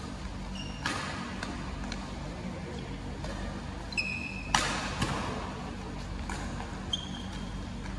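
Doubles badminton rally: rackets strike the shuttlecock with sharp cracks, several times, the loudest about halfway through. Court shoes give brief squeaks on the floor, ringing a little in the large hall.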